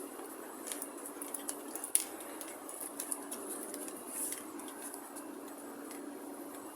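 Inside an MRT train carriage: a steady hum with scattered light clicks and clinks over it.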